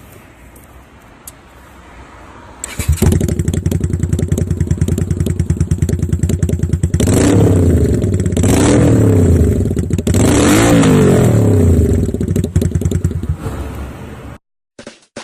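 Honda V-Twin Magna 250's V-twin engine starting up about three seconds in and idling, then revved three times in quick succession, each rev rising and falling back to idle. The sound cuts off abruptly near the end.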